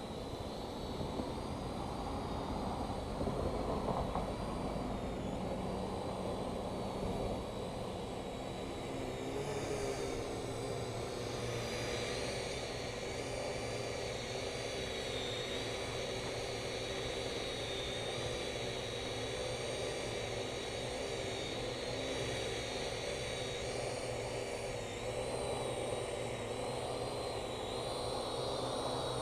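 Parrot AR.Drone 2.0 quadcopter flying, its motors and propellers giving a steady whirring hum with a high whine whose pitch wavers; the whine grows stronger about a third of the way in.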